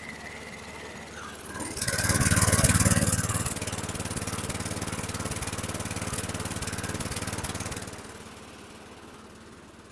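A 2013 Craftsman front-wheel-drive push mower's small engine catches about two seconds in and runs loud at first. It then settles to a steady run for several seconds before dropping away near the end. The idle is set a little low.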